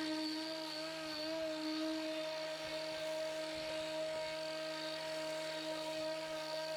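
Pellenc Rasion 2 Easy battery lawnmower running: a steady electric motor and blade whine, its pitch wavering briefly about a second in.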